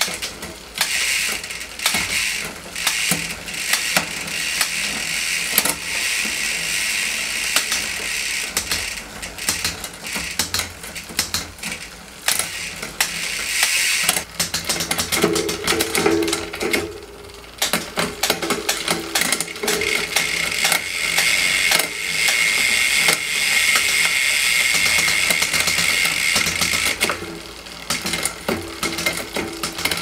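Mountain bike drivetrain spun by hand in a workstand: the chain running over the gold cassette and the SRAM rear derailleur's pulleys, with the rear hub's freehub ratcheting in a fast run of clicks as the wheel spins.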